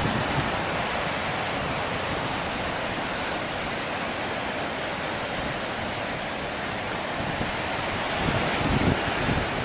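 Surf breaking and washing on a beach in a steady rush, swelling a little near the end.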